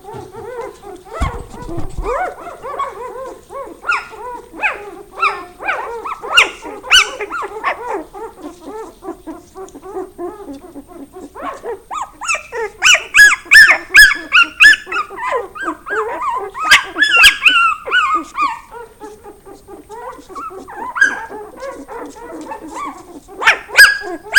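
A litter of Norwegian Lundehund puppies squealing, whining and yipping over each other as they eat raw meat, with louder bouts of shrill squealing about halfway through and again near the end.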